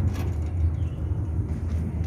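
A steady, low outdoor rumble with no distinct events.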